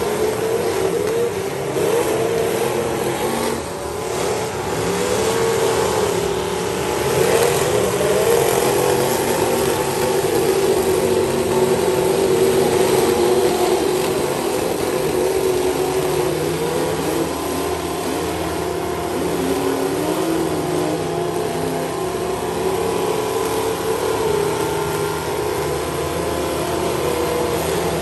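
Several demolition derby cars' engines running hard and revving up and down as they ram one another, with the odd bang of a collision.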